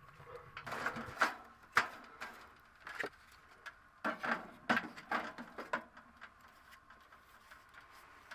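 A string of irregular knocks, clatters and short rustles, like things being handled and set down, for about five seconds before it settles to a faint steady background.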